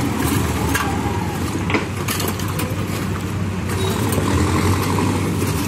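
Diesel engine of a Manitou backhoe loader running steadily with a low hum, with a few short knocks about a second and two seconds in.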